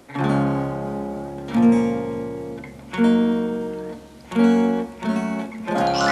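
Soundtrack music: strummed guitar chords, about five of them, one every second and a half or so, each ringing out and fading before the next.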